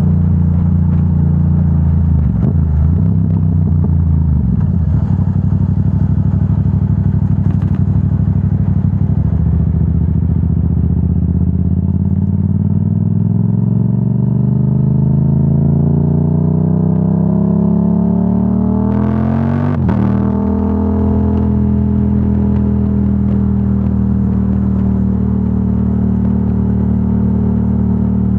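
Yamaha R7's parallel-twin engine through a Yoshimura AT2 full exhaust, riding: steady running at first, then the revs climb over about eight seconds, fall sharply about twenty seconds in, and settle to a steady pitch.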